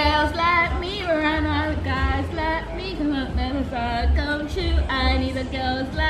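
Music: a high female voice singing a melody over a low bass line.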